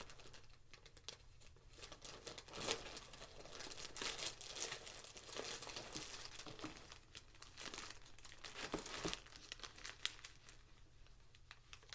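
Plastic bag crinkling and crackling as it is worked open by hand, in irregular spells, thinning out over the last couple of seconds.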